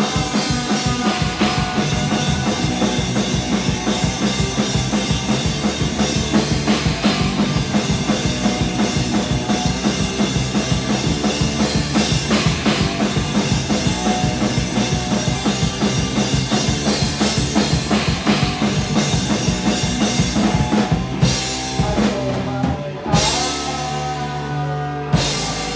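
Live rock band playing loud and fast, the drum kit pounding a quick beat under bass and guitar. Near the end the steady beat breaks into a few separate heavy hits, with chords ringing on between them.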